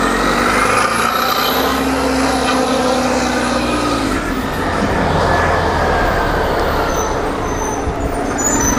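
Heavy road traffic passing close by, mostly trucks and buses. Their engines rise and fall in pitch over a steady loud rush of road noise.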